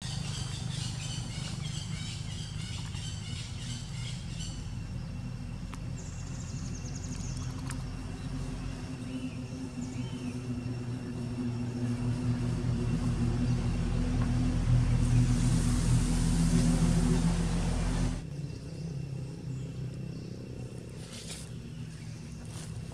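A motor vehicle's engine running steadily nearby, growing louder in the second half and cutting off abruptly about 18 seconds in. A high, rhythmic chirping sounds over it for the first few seconds.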